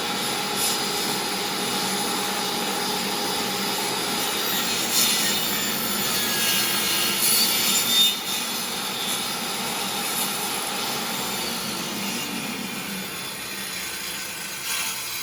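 DeWalt table saw running, its blade cutting into a wood blank as it turns on a lazy-susan circle jig. There are sharper, louder scrapes about five and eight seconds in.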